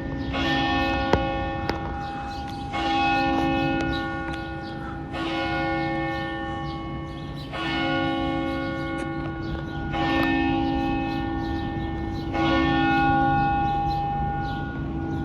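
Church tower bell striking the 11 o'clock hour in slow single strokes, about one every two and a half seconds, each stroke ringing on into the next. A short sharp click about a second in.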